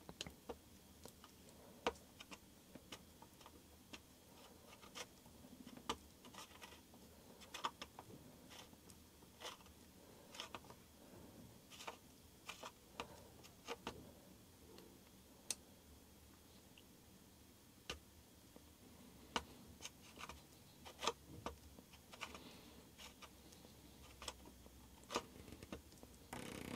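Faint, irregular small clicks and ticks of hand tools and metal parts as a Headshok damper's top is being bolted down and tightened.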